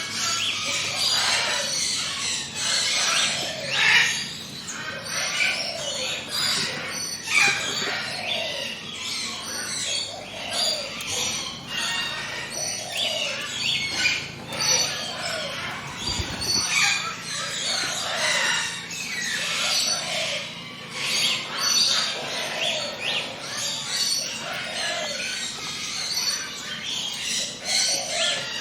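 A dense chorus of forest songbirds chirping and trilling, many birds overlapping, with a lower call repeating about every two seconds.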